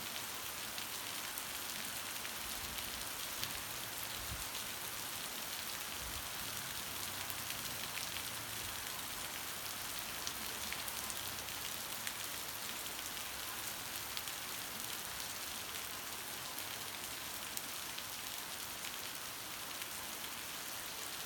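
Heavy rain falling steadily: a dense, even hiss with countless fine drop ticks.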